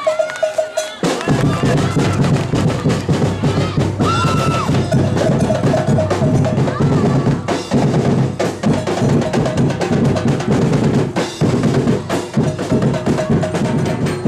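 Loud, drum-heavy music with a dense, fast drumbeat that comes in about a second in, with a few short high notes over it.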